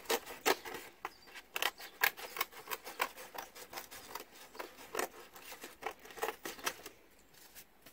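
Scissors cutting through cardboard: a run of irregular crunching snips, about two or three a second, stopping near the end.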